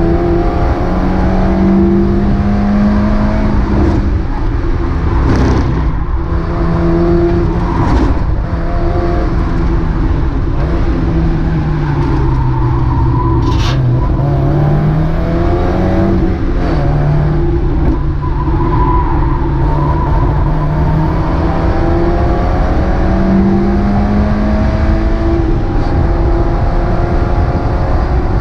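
Mazda MX-5 race car's four-cylinder engine heard from inside the car, revving up through the gears and dropping back under braking several times, over steady tyre and road noise. A few short sharp clicks cut through, the loudest about two thirds of the way in.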